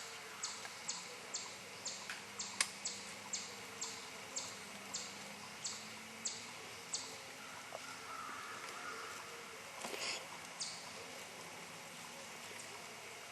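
A small animal's short, high chip call repeated about twice a second, thinning out after about seven seconds, over a faint outdoor hiss, with a brief rustle about ten seconds in.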